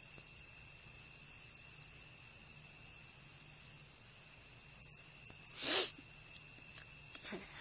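Night insect chorus: a steady, high-pitched, layered trilling of crickets and other insects. A brief breathy puff of noise comes about six seconds in.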